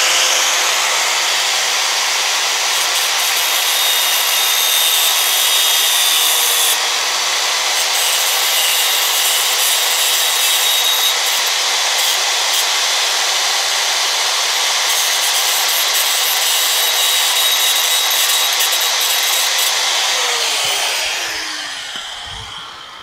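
Angle grinder running and grinding a sheet-metal piece for about twenty seconds, then switched off and spinning down, its pitch falling over the last two seconds.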